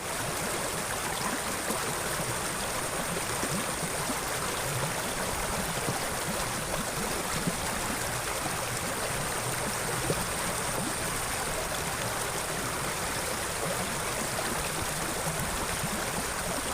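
Water flowing steadily in a drainage ditch, an even rushing with no breaks.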